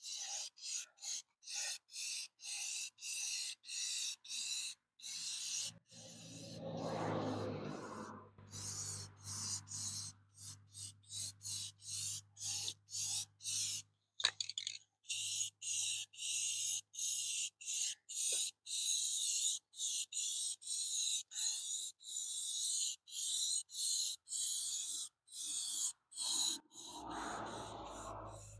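Aerosol spray-paint can hissing in short repeated bursts, roughly two a second, as the nozzle is pressed and released. Twice, about six seconds in and near the end, a brief lower rumbling noise rises underneath.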